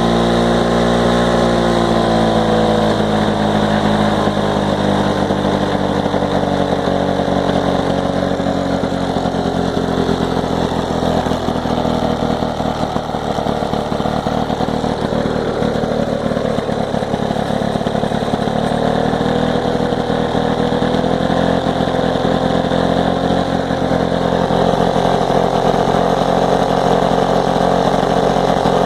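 Lawn-Boy Bricktop two-stroke mower engine running on its first run after a carburetor rebuild. Its speed sags in the first few seconds and it runs rough and uneven through the middle, then picks back up and runs steadily toward the end.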